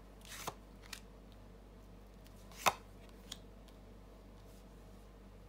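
Glossy tarot cards being handled and laid on a table: a short card slide near the start, a couple of light taps, and one sharp card click just under three seconds in, the loudest sound.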